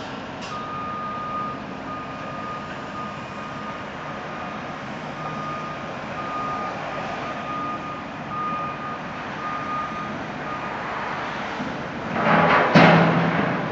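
Reversing alarm of a work vehicle, a single-pitch beep repeating about once a second over a steady background rumble of yard machinery. Near the end comes a loud rush of noise with a sharp knock.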